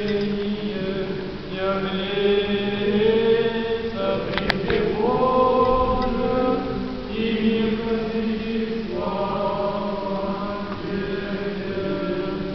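Russian Orthodox liturgical chant sung by a group of voices, long held notes shifting to new pitches every couple of seconds. A short click about four and a half seconds in.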